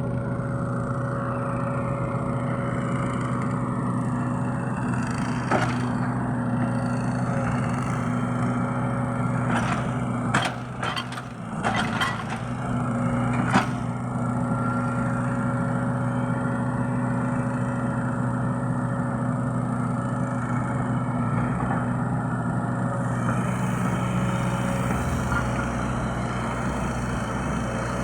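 Hydraulic excavator's diesel engine running steadily, with a cluster of sharp knocks and clanks about a third of the way in.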